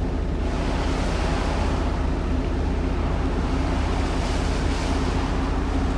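Steady rush of tropical-storm wind and rain, with a low steady hum underneath.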